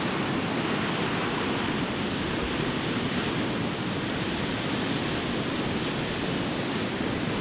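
A beck in flood, its fast, high water rushing past in a steady, unbroken rush.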